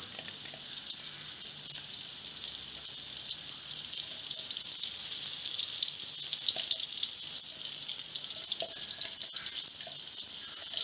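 Blended chili-and-shallot spice paste frying in oil in a steel wok: a steady sizzle with fine crackles, from oil that is only moderately hot.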